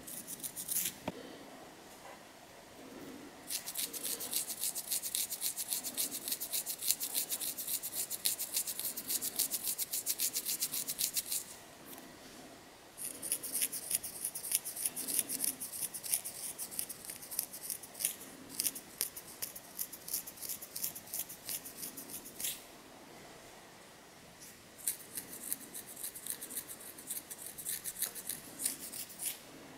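Long fingernails scratching a dandruff-flaked scalp through the hair: rapid strokes, many a second, in three long runs with short pauses between them.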